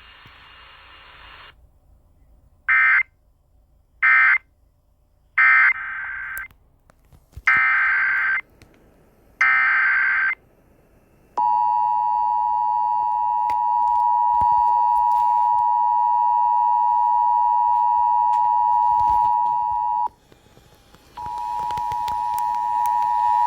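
Emergency Alert System signalling: three short screeching digital data bursts (the end-of-message code), then three longer bursts (the SAME header for the next warning). Then the two-tone attention signal is held for about eight seconds, breaks off, and sounds again for about three seconds.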